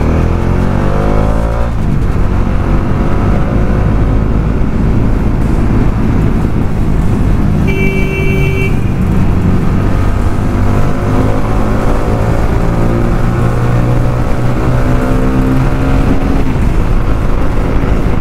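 Motorcycle engine running under way, its pitch rising and falling with throttle and gear changes, over a heavy low rumble of wind on the microphone. A vehicle horn beeps once about 8 seconds in, lasting about a second.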